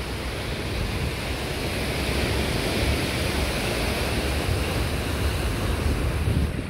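Sea surf breaking and washing against a rock breakwater, a steady rush, with wind buffeting the microphone.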